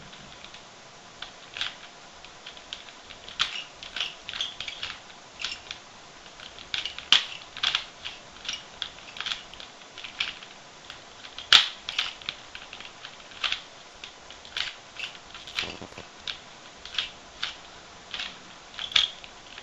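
Plastic 3x3x3 Rubik's Cube being turned fast during a timed solve: its layers click and clack in quick, irregular runs of a few turns a second, with a couple of sharper clacks.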